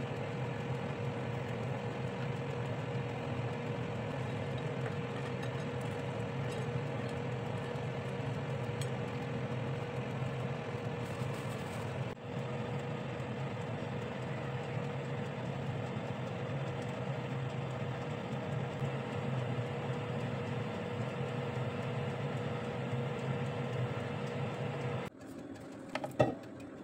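Halogen convection oven running: the steady hum of its fan motor with a fixed tone, which cuts off suddenly near the end, followed by a few clicks from the oven's lid and handle.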